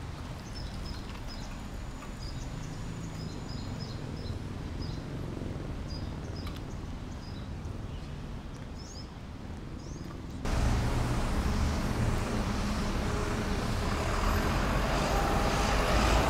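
Street ambience: a steady low traffic rumble with small birds chirping. About ten seconds in it switches abruptly to a louder, steady hiss that fills the sound.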